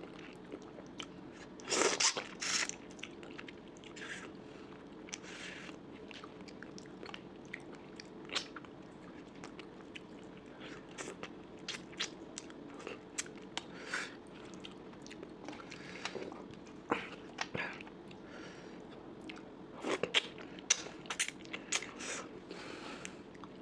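A person chewing and biting food close to the microphone, with crunches and wet clicks scattered throughout and louder bursts about two seconds in and again near the end. A steady low hum runs underneath.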